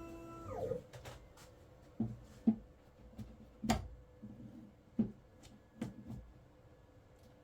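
Background music slides down in pitch and stops about half a second in. After that, about six separate light knocks and clicks, the loudest about two and a half seconds in, play over a faint steady hum, like things being handled on a bench.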